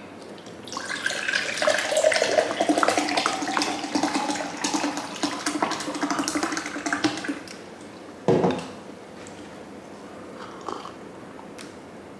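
Beer being poured into a glass mug, splashing for about six seconds, followed by a single sharp knock about eight seconds in.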